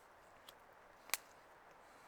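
A sharp click just after a second in, with a fainter click about half a second in, over faint steady background noise.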